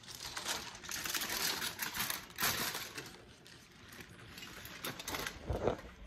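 Paper and plastic food wrapping crinkling and rustling in irregular bursts as it is pulled back from a foil tray of fried chicken wings, with a dull bump near the end.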